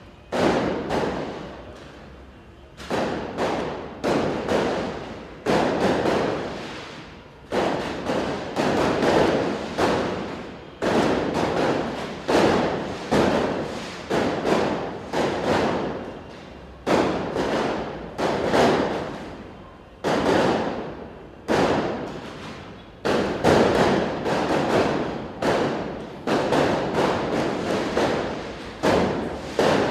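Fireworks going off in a long, irregular run of loud bangs, roughly one a second with a few short pauses. Each bang has a short rumbling tail.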